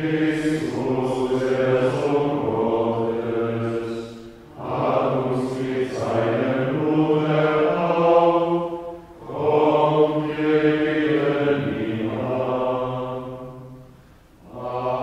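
Men's voices singing Gregorian plainchant of the Tenebrae office in phrases of about five seconds, each followed by a short breath pause.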